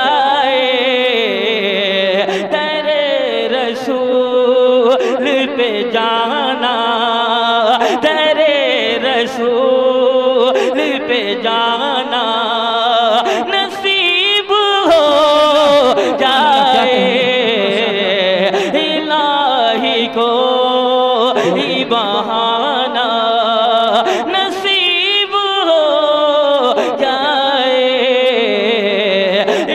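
A male reciter singing a naat unaccompanied in long, drawn-out melismatic phrases, each note held and bent for several seconds.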